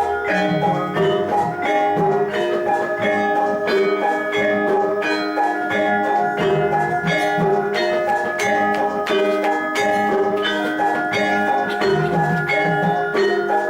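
Javanese gamelan ensemble playing jathilan accompaniment: bronze metallophones ring out a melody of struck notes over a steady, even beat.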